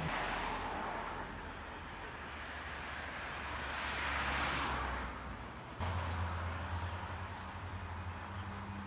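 Road traffic: a car passes, its tyre and engine noise swelling and fading about four to five seconds in. A little later the sound changes abruptly to a steady low hum.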